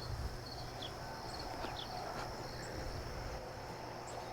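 Outdoor ambience of insects: a steady high trill runs throughout, with a few short, faint chirps above it and a low rumble underneath.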